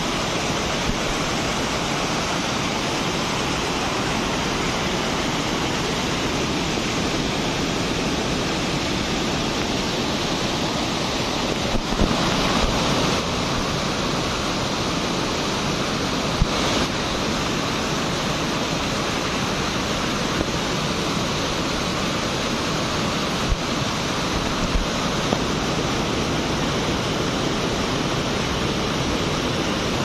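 Rushing water of a small stream cascading over rocks, a steady loud rush, with a few brief low bumps about twelve and sixteen seconds in.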